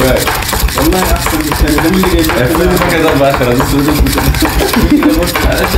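Handheld battery milk frother whipping instant coffee into a thick paste in a glass mug. Its small motor whirs with a wavering pitch while the whisk rattles rapidly against the glass.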